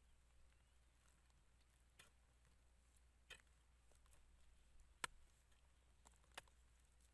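Near silence broken by four faint, sharp taps spaced a second or more apart.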